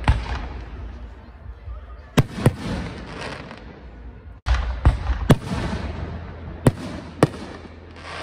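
Aerial firework shells bursting overhead: about eight sharp bangs, several in quick pairs, each trailing off in a noisy rumble.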